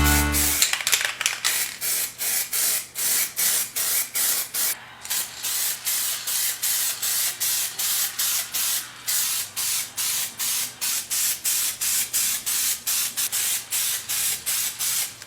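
Rhythmic scraping strokes, about four a second, hissy and bright.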